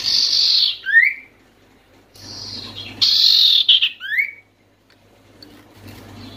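Common iora (cipoh) calling twice, about three seconds apart: each call is a harsh, buzzy high note followed by a short rising whistle.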